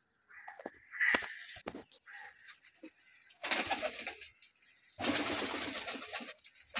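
Domestic pigeons in a wire loft, cooing, then two loud bursts of wing flapping as a pigeon flies in and settles on the perch, the first about halfway through and the second near the end.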